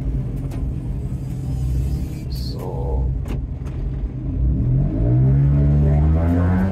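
Piaggio Ape 50's small two-stroke engine running while driving, heard inside the cab. About four and a half seconds in, its pitch rises and it gets louder as it accelerates. A few short knocks or rattles come earlier.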